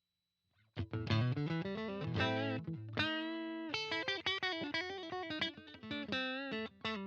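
JCraft LSX-1 electric guitar with humbucking pickups, played through an amp with some effects, plays a melodic lead line. After a short silence it starts with quick single notes, holds one note about three seconds in, then plays notes with vibrato.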